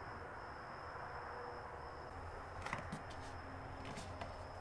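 Motor oil poured from a plastic jug through a funnel into a car engine's oil filler: faint, over a steady background hiss, with a few soft clicks a little past the middle and near the end.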